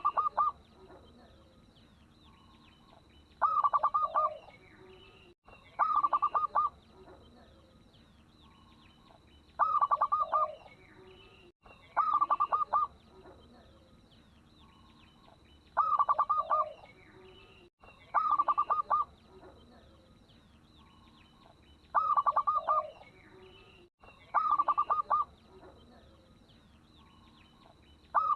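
A local zebra dove (perkutut) is cooing: short phrases of rapid staccato coos, about eight in all, coming in pairs a couple of seconds apart. Its song is used as a lure to set other perkutut singing. Faint chirps of small birds and a thin steady high tone run behind it.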